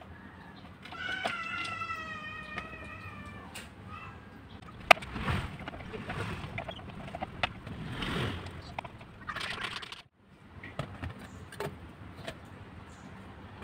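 Hands working the plastic base and bolt of a car armrest console: rustling and knocks, with one sharp click about five seconds in. About a second in, a long pitched call sounds in the background, slowly falling in pitch for about two and a half seconds.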